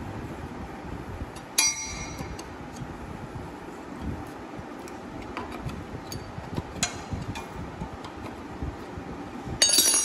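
Metal clinks of a socket wrench and extension working the bolts on a motorcycle engine's cylinder-head cover. There is one sharp ringing clink about a second and a half in, lighter ticks in between, and a louder ringing clink near the end, over a steady workshop hum.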